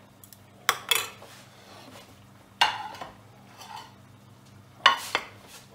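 A metal serving spoon and fork clinking and scraping against a baking dish and a china plate as dauphinoise potatoes are served, in a handful of sharp clinks, some in quick pairs, a second or two apart.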